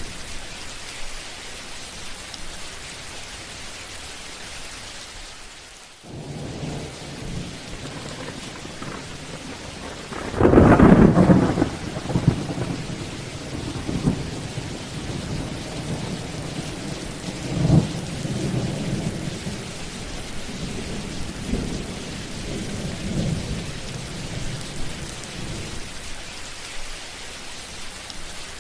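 Thunderstorm: steady rain falling, with rolling thunder. The rain briefly drops away about six seconds in, a loud thunderclap breaks about ten seconds in and rumbles on, and another rumble follows a few seconds later.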